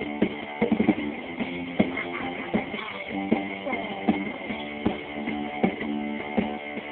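Rock band playing live: strummed guitar chords held over a drum kit beating a steady rhythm of hits and cymbal crashes.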